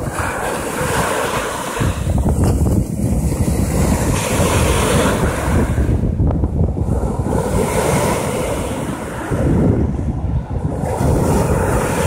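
Sea surf: small waves breaking and foaming up a sandy beach, the wash swelling three times. Wind rumbles on the microphone throughout.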